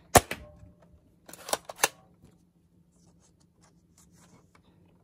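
Spring-powered Nerf Fortnite mega-dart pistol firing: one sharp snap right at the start, then a quick run of three plastic clicks about a second and a half in, followed by faint handling ticks as a mega dart is pushed into its barrel.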